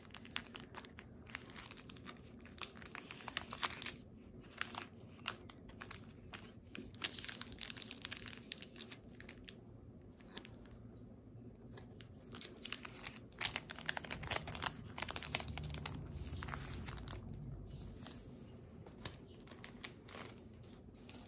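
Plastic bag packaging crinkling and rustling as it is handled and pulled open, in irregular bursts of crackling with short pauses between.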